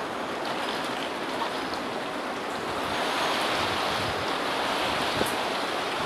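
Storm wind roaring through the garden in strong gusts, swelling louder about three seconds in. One sharp tap about five seconds in.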